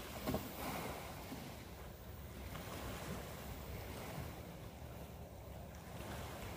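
Small sea waves washing over a rocky shore, with wind buffeting the microphone as a steady low rumble. A single light knock sounds about a third of a second in.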